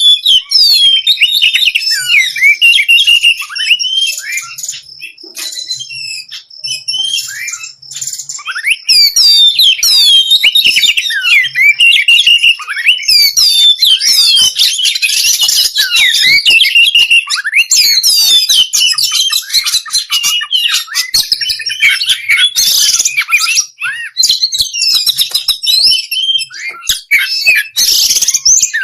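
Dense songbird chattering and trilling: many quick, high whistled notes sweeping up and down with barely a pause, a little sparser a few seconds in and then busier again. It is masteran birdsong, the song used to tutor caged songbirds and get them singing.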